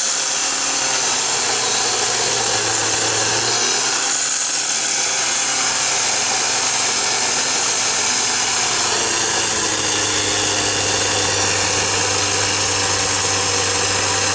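Dyna Digger power shovel's small two-stroke engine running hard as its reciprocating blade chops into palm roots in the soil. The engine note shifts down a little about four seconds in, then holds steady.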